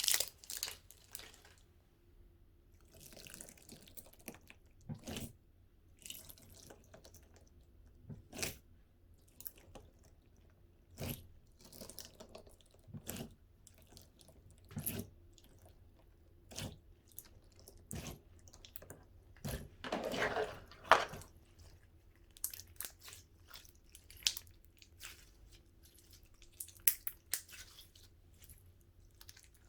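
Clear slime with beads and add-ins mixed through it being squished and stretched by hand: irregular sticky clicks and pops, with a longer squelch about twenty seconds in.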